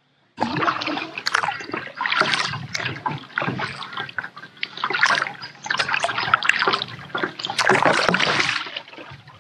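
Kayak paddle strokes through calm creek water: repeated splashing and dripping from the paddle blades, surging every second or two, with water sloshing close against the plastic hull.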